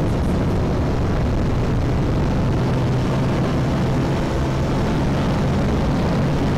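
Motorcycle riding at a steady speed: an even engine drone with one held tone, under constant wind rush on the microphone.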